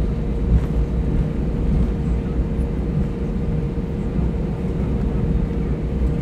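Cabin noise inside an Airbus A320 taxiing: a steady low rumble from the engines and wheels, with a faint steady hum.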